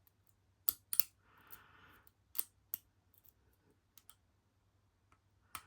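Lock pick and tension wrench working the pins of a Master Lock No. 3 pin-tumbler padlock: sparse, sharp metal clicks, some in quick pairs, with a brief soft rasp about a second in. The lock is stiff and gunked up inside.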